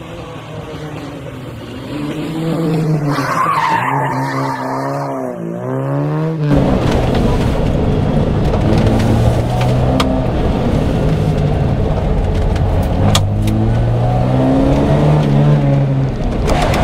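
Fiat 131 rally car's engine revving up and down through tight bends, with tyres squealing. For the first six seconds or so it sounds thinner and quieter. After that it is heard from inside the cabin, louder and fuller, with a couple of sharp clicks.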